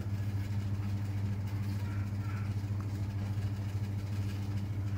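Steady low hum of a motor running, unchanging throughout.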